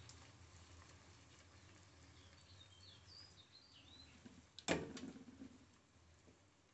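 A spatula knocks once, sharply, against a nonstick frying pan while batter is being spread, over a low hum. Faint bird chirps come through a second or two before the knock.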